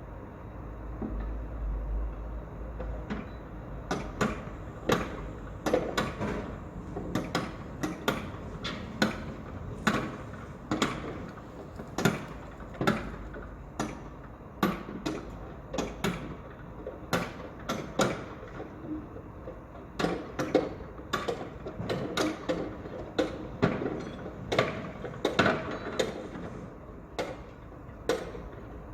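Construction site work: irregular sharp knocks and bangs, about one or two a second, over a steady background noise, with a low rumble in the first few seconds.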